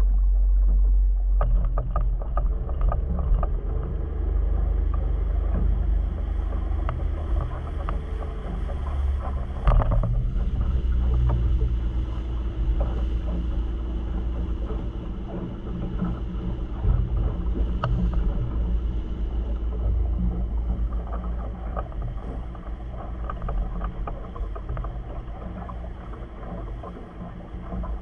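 Steady low rumble of wind and water around a small boat sitting on a calm sea, with scattered light knocks and one sharper knock about ten seconds in.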